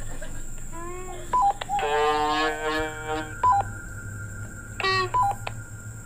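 Three short two-note electronic beeps, a higher note stepping down to a lower one, each following a brief pitched sound with many overtones; the longest of these lasts about a second, in the middle.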